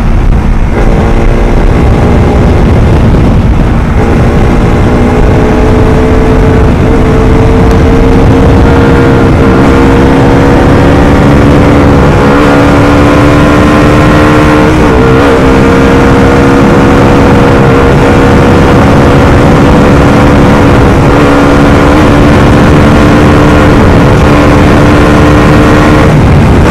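Bajaj Pulsar RS200's 200 cc single-cylinder engine at full throttle, pulling toward top speed, heard from the rider's seat. Its pitch climbs slowly, with a few brief dips along the way, over a low rush of wind.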